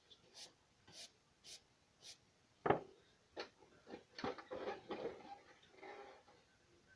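Handling of drawing materials on a desk and sketch pad: four quick soft swishes about half a second apart, then a sharp tap a little under three seconds in, followed by a run of light knocks and paper rustles as the pencil is taken up.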